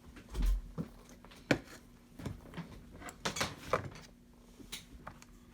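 Clicks, knocks and light rattles of the plastic housing of a Robot Coupe MP 600 stick blender being handled and prised apart. There is a dull thump about half a second in, a sharp click about a second later, and a cluster of small clicks near the end.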